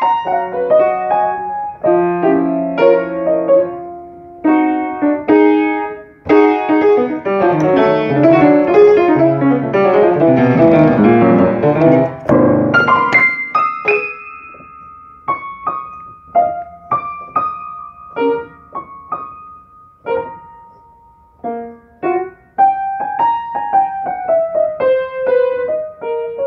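Solo upright piano playing a blues piece: chords first, then a dense, loud passage of fast notes from about six to twelve seconds in, then a sparser, quieter melody of single notes with a falling line near the end.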